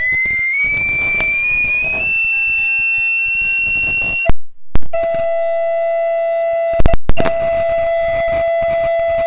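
Audio feedback howl. A high whistling tone slowly rises in pitch, then cuts off with loud pops about four seconds in. After a brief silence a steadier, lower tone takes over, broken by a few more loud pops about halfway through.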